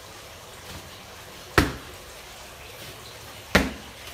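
Two sharp smacks of bare-foot taekwondo kicks striking a padded kicking shield, about two seconds apart.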